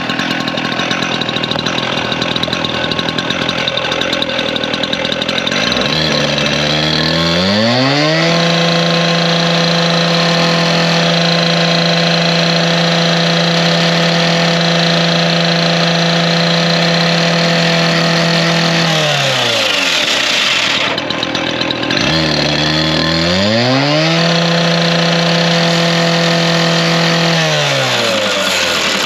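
Stihl TS 420 cut-off saw's two-stroke engine revving up to full speed about six seconds in and holding there for about ten seconds, then dropping back. It revs up again for a few seconds and drops back once more. A harsh, dense hiss runs throughout, typical of the saw's abrasive blade cutting through a steel water heater tank.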